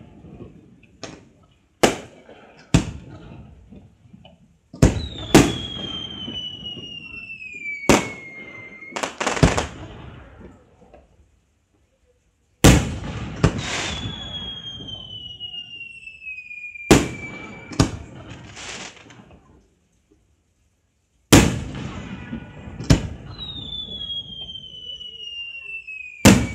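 Fireworks display: sharp bangs of shells bursting, often two or three in quick succession. Three times a whistling tone glides down in pitch over two to three seconds. The sound cuts out abruptly twice.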